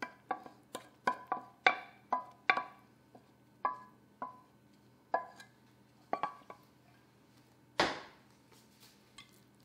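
Wooden spoon knocking and scraping against a stainless steel saucepan as sticky honey, sugar and butter mixture is scraped out into a bowl; each knock makes the pan ring briefly. The knocks come about twice a second at first, then thin out, with one louder, duller knock near the end.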